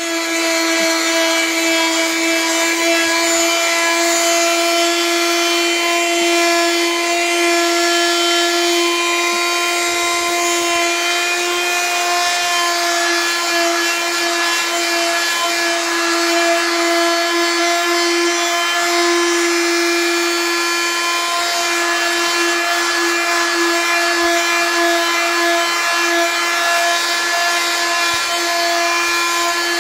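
Electric detail sander running steadily with an even hum, its triangular pad rubbing over a rough, weathered wooden plank to clean off the old grey surface.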